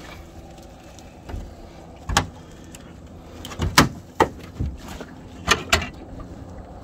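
Irregular sharp knocks and clanks, about seven of them, the loudest a little before the middle: a collapsible crab pot's frame and clips being handled and closed up, knocking against the side of an aluminium dinghy.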